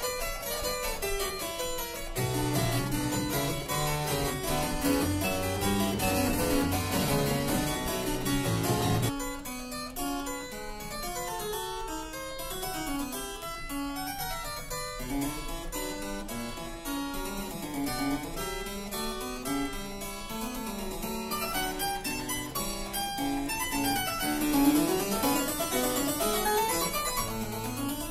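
Pedal harpsichord playing fast Baroque counterpoint in many quick plucked notes. A low pedal bass line sounds from about two seconds in, drops out about nine seconds in, and comes back near the end.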